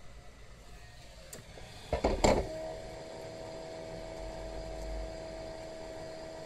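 A quick cluster of knocks and clicks, then a small electric motor starts about two and a half seconds in and hums steadily at one pitch.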